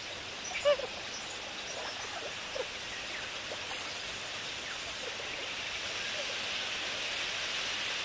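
Open wetland ambience: a steady hiss with short waterbird calls. The loudest call comes just under a second in, fainter scattered calls follow, and the hiss grows slightly louder toward the end.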